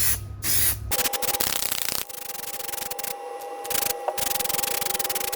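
Aerosol can of matte black spray paint hissing in two short bursts during the first second, then it stops. After that a steady hum with a fine scratchy rubbing noise runs on.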